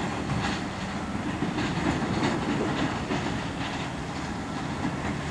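CN diesel locomotives running light past at low speed: a steady low engine drone, with the wheels clicking again and again over the rail joints, busiest in the middle.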